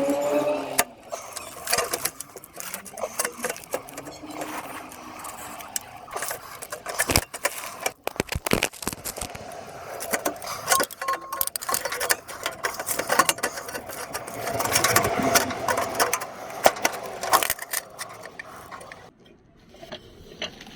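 Irregular clicks, taps and knocks of metal parts and hand tools being handled while fitting a repair part onto a car's broken exhaust pipe.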